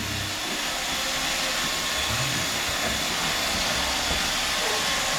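Roomba robot vacuum running, a steady whirring hiss from its motor and brushes as it cleans the floor.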